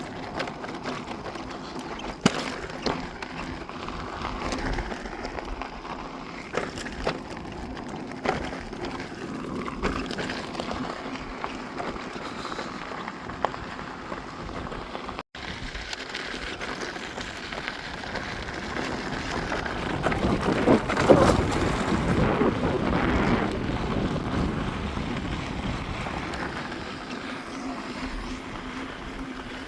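Begode Master V3 electric unicycle being ridden along a dirt trail: steady tyre and ride noise with scattered sharp knocks from bumps. Wind buffets the microphone, swelling louder about 20 seconds in.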